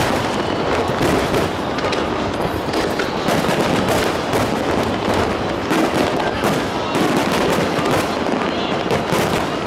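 Aerial fireworks going off: many overlapping bangs and crackles in quick succession, over the steady chatter of a large crowd.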